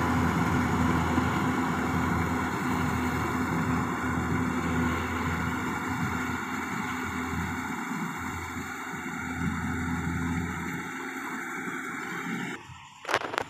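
Yanmar combine harvester's diesel engine running steadily, slowly getting quieter. The sound drops away abruptly near the end, followed by a brief sharp sound.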